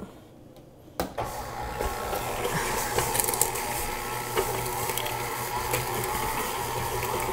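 Electric stand mixer switched on about a second in, then running steadily on low speed with a constant hum, its paddle attachment mixing ground pork in a metal bowl. A few light clicks sound over the motor.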